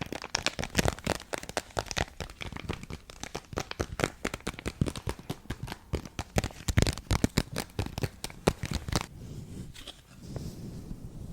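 Fingers tapping rapidly on an object for ASMR, a dense run of sharp, irregular taps that stops about nine seconds in, followed by softer handling noise.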